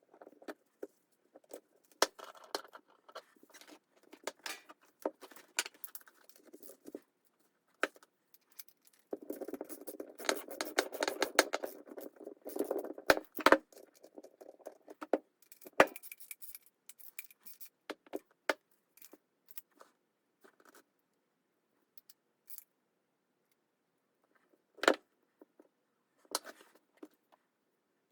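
Small metal parts being handled and fitted by hand: scattered clicks and clinks, a stretch of scraping and rubbing about a third of the way in, and one sharp click near the end, as a collar and mounting bracket go onto a new washing-machine friction damper.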